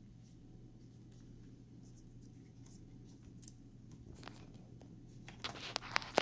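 Small clicks and rustling of hands handling a laptop's LCD cable connector and the plastic parts around it. The sounds grow busier near the end and finish with one sharp click, over a faint steady hum.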